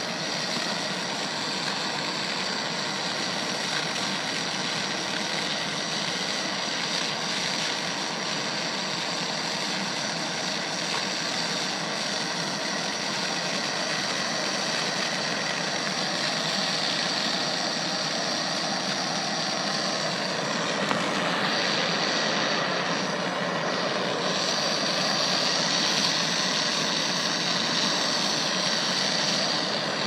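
MAPP gas torch burning with a steady rushing hiss, its flame held on a padlock to melt out its zinc insides. The hiss grows a little louder about two-thirds of the way through.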